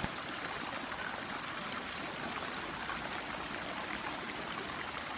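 Steady splashing of water in a swimming pool: spray falling onto the water surface and a swimmer's backstroke strokes.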